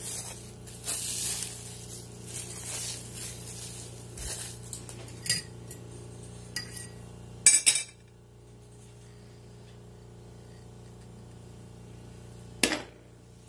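Plastic wrap crinkling as it is peeled off a frozen burger patty, then a few sharp clinks of a fork against a glass bowl of beaten egg. Near the end comes one more clink as the glass bowl is tipped against a ceramic plate.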